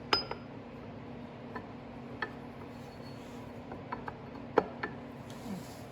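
Metal engine parts and hand tools clinking and tapping as they are handled during an engine rebuild: a ringing clink right at the start, a few light taps, and the loudest clink about four and a half seconds in, over a steady low hum.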